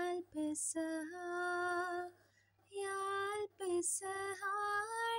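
A woman's voice singing a slow melody unaccompanied, in long held notes broken by short pauses for breath, with a brief silence just after two seconds in.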